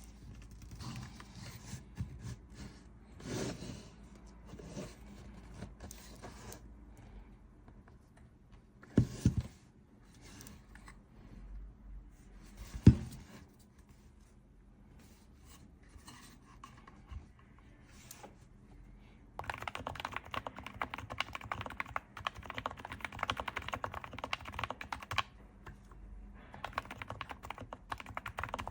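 Keys typed on a Sho S60 V2 Topre keyboard with aluminum keycaps: scattered single keystrokes with two louder thumps, then fast continuous typing for about the last third.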